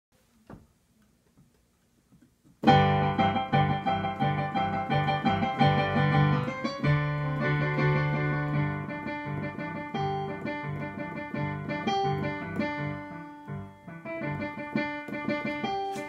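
Yamaha digital piano playing. It starts abruptly about two and a half seconds in, with chords over a repeated, pulsing bass note.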